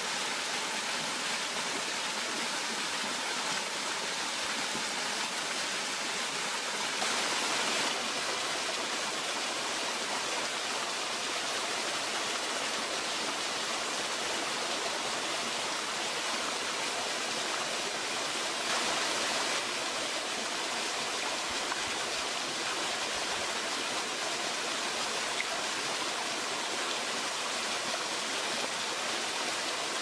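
Small waterfall, two thin streams pouring over mossy rock and splashing into a shallow rocky pool, a steady rush of falling water.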